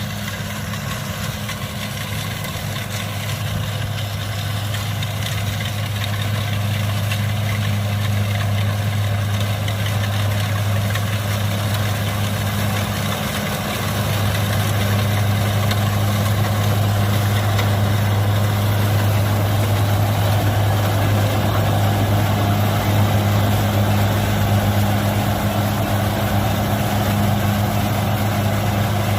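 Kubota DC-70 combine harvester's diesel engine running at a steady working speed, with a continuous mechanical noise over its hum. It gets a little louder over the first several seconds and briefly dips about halfway through.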